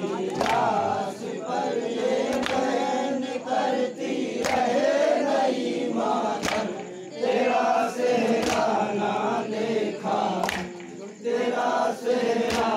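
Group of men chanting a Shia noha (Muharram lament) together, with a sharp unison chest-beating strike (matam) about every two seconds keeping the beat.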